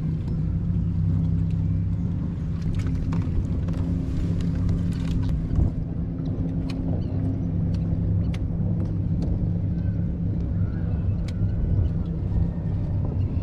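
A motorboat's engine droning steadily in a low hum, with a few small clicks and taps over it.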